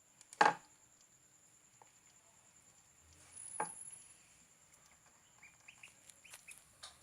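Newly hatched chicks peeping, with a few short, faint high peeps near the end. Two sharp knocks sound about half a second in and again about three and a half seconds in.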